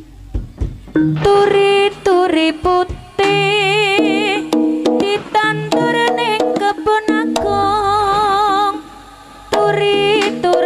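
Live jaranan ensemble music: a few sharp drum strokes, then a loud melody of held, wavering notes over steady drumming, which drops away briefly near the end before coming back in.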